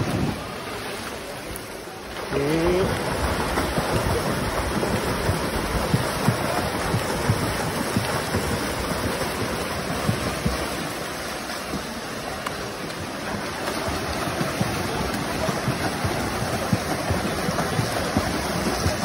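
Splashing of several swimmers racing freestyle in a pool: a steady wash of churning water with irregular slaps from arm strokes and kicks. A brief rising shout comes about two seconds in.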